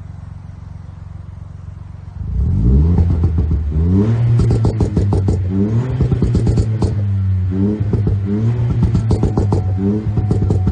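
Ford Fiesta ST Mk8's turbocharged 1.5-litre three-cylinder engine idling through a valved aftermarket exhaust with the GPF deleted and the valve open, then revved in repeated free-revving blips from about two seconds in, with crackling as the revs drop.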